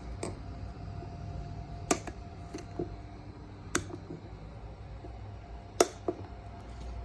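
Zip ties being cut off a freshly seated scooter tire: a few sharp snips, roughly one every two seconds.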